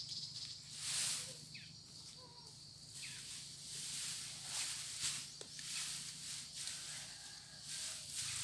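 Dry grass thatch rustling in short swells as a bundle is picked up, lifted and pushed into place on a pole roof frame.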